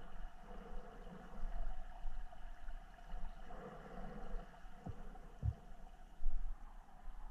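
Muffled underwater sound of shallow creek water stirred by a hand among the rocks: a low rumble with uneven swells of water movement, two dull low thumps about five seconds in, and a louder swell shortly after.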